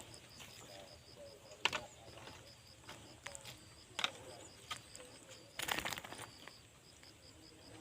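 An insect chirping in rapid, even, high-pitched pulses, with a few scattered clicks and a brief louder rustle about three-quarters of the way through.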